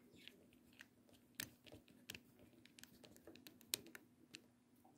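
Faint, irregular small clicks and taps of a plastic pry tool and fingertips on a Redmi Note 4's plastic inner frame during reassembly. The sharpest click comes a little before four seconds in, over a faint steady hum.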